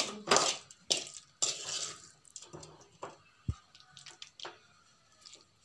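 Metal spoon scraping a moist stir-fry out of a steel pan and spreading it over a banana leaf: a few hissing, scraping strokes in the first two seconds, then scattered light clicks and a low thump about three and a half seconds in.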